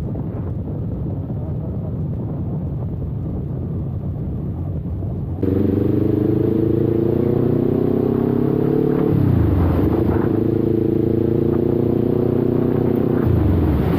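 Kawasaki Ninja 400 parallel-twin engine under way. For the first five seconds it is buried in low wind rumble on the camera's internal microphone. Then the sound changes suddenly to a clear engine note that climbs steadily in pitch, dipping briefly twice as it shifts up.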